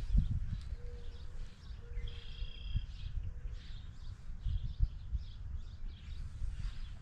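Lakeside ambience: birds chirping, with one clear high call about two seconds in, over a low rumble on the microphone.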